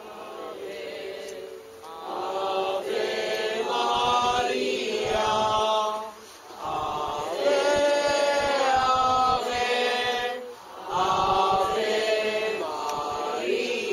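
A group of worshippers singing a slow devotional chant together in unison, in long held phrases with short breaks between them.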